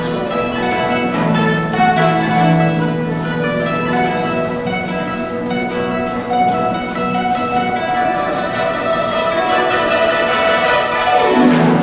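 Guzheng (Chinese plucked zither) playing rapid, dense plucked notes over ringing low notes, with a sweeping downward glissando near the end.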